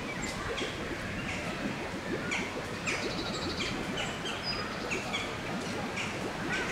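Small birds chirping, short high calls at irregular intervals with a quick rapid trill about three seconds in, over a steady background of outdoor noise.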